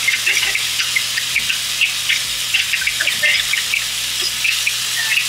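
Steaks frying in a metal pan over a gas burner: a steady sizzling hiss with many quick crackling pops.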